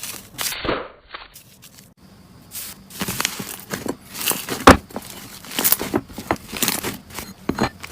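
Slime being squeezed and worked by hand, giving irregular crackling and popping clicks.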